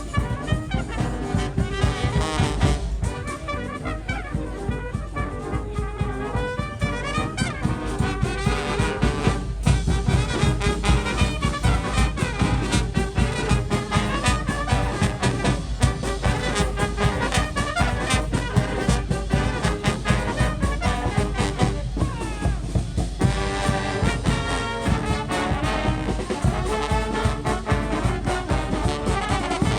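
Marching band playing a lively tune live, with brass (trombones and trumpets) over a steady beat.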